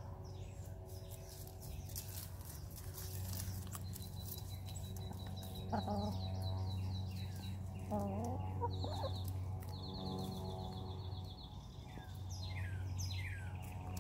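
Hens giving two short, low murmuring clucks, about six and eight seconds in, while pecking at food, over songbirds calling in the background: runs of quick high chirps and, near the end, a few falling whistled notes. A low steady hum lies underneath.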